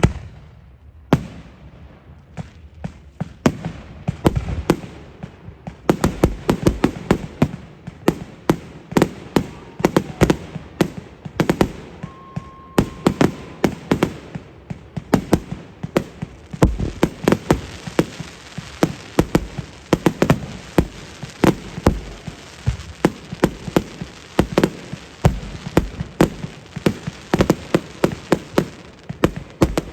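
Fireworks going off: a few separate bangs at first, then from about six seconds in a rapid, continuous string of booms and crackles.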